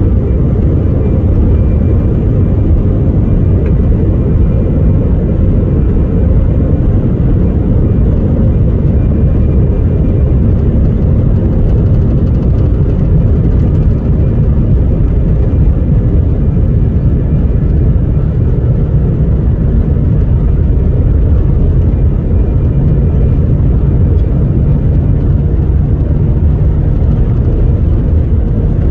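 Jet airliner cabin noise heard from inside the cabin: the engines and the airflow make a loud, steady low rumble, as during the departure after the crew is told to prepare for take-off.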